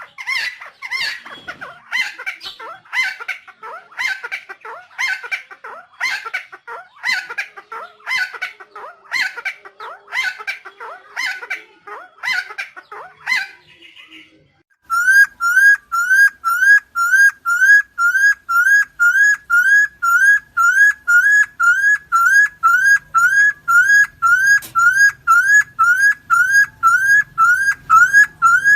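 Helmeted friarbird giving harsh, raspy calls at about two a second. After a short break near the middle, a different clean, rising whistled note begins and repeats evenly at about two a second.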